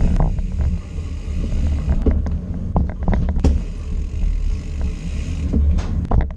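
Wind buffeting the microphone over the low rumble of a bicycle rolling along a rough concrete alley, with scattered clicks and knocks as the bike rattles over bumps.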